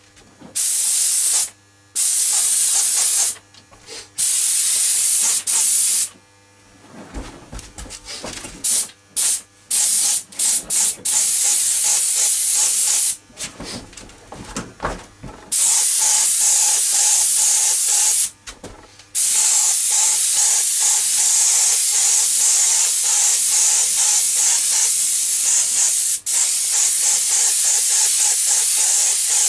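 Compressed-air paint spray gun hissing as 2K primer is sprayed, in trigger pulls that start and stop sharply: several short bursts with gaps, then long, nearly unbroken passes from about halfway through, with one brief break near the end.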